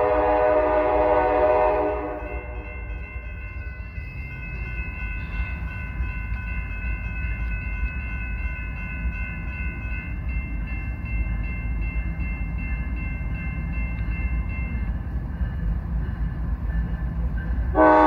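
Norfolk Southern locomotive air horn blowing a chord, cutting off about two seconds in and sounding again loudly near the end, with the low rumble of the approaching train underneath. Between the horn blasts, steady high ringing tones carry on from the crossing signals.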